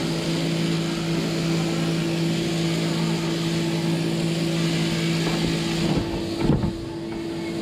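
Sheep-shearing machine running with a steady motor hum. Near the end the lower part of the hum stops and there is a single knock.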